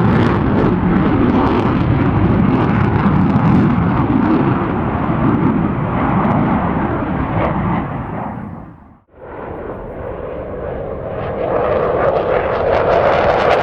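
Fighter jet engines running in afterburner: a loud, dense roar that fades out about nine seconds in. Straight after, another jet's afterburner roar rises.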